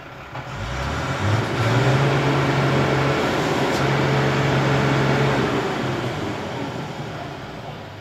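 A motor vehicle engine revving hard close by. It comes up about half a second in and holds a steady high note, with a short dip midway, then dies away over the last few seconds.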